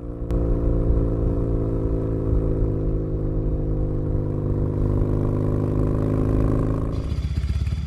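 Norton Commando's parallel-twin engine running at steady revs as the motorcycle is ridden, heard from on board; the note eases off near the end.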